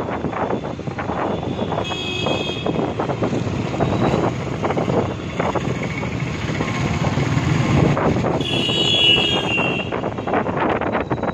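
Wind buffeting the microphone over steady vehicle noise on the road. Brief high-pitched tones sound about two seconds in, and more strongly around nine seconds in.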